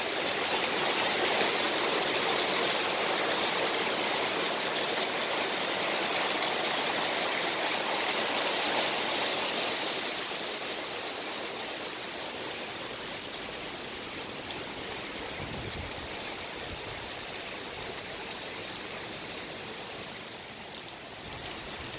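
Heavy rain falling onto a paved patio: a steady hiss of pouring water that drops a little in level about halfway through, after which individual drops are heard tapping nearby surfaces.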